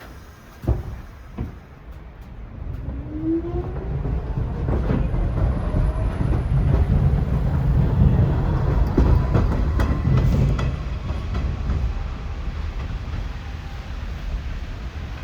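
New York City subway train running on the elevated track, wheels clacking over rail joints, its rumble building to a peak midway and easing toward the end. Two sharp knocks come in the first second and a half.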